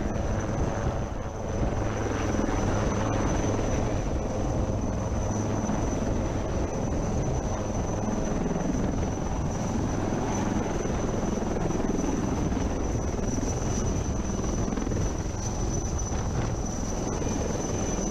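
Indian Navy helicopter hovering low, rotor and turbine running steadily, with a thin, high, steady whine over the rotor noise.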